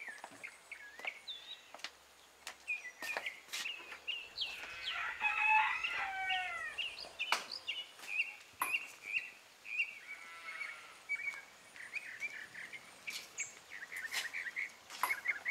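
Small birds chirping over and over, with a rooster crowing about five seconds in and again more faintly around ten seconds; a few light knocks.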